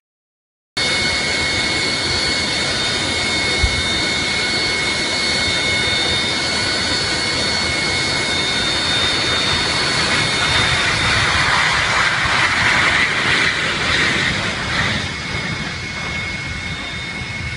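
Jet aircraft engines running, cutting in abruptly about a second in: a broad rushing noise with a steady high whine over it. The noise swells a little past the middle and eases near the end.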